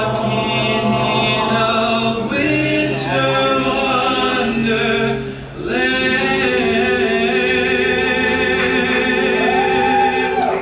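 Men's a cappella group singing held chords in close harmony. There is a short break about halfway, then one long sustained chord that cuts off near the end, the close of a Christmas medley.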